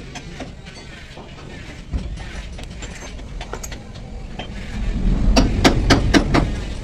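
Metal parts clinking and clicking as they are handled, then a quick run of about six loud metallic knocks over a low rumble about five seconds in.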